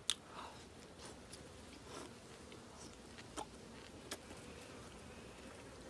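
Mouth and finger sounds of someone eating canned fermented herring (surströmming) by hand: a handful of soft, wet clicks and smacks spread over a few seconds, the first the loudest, over a faint steady background.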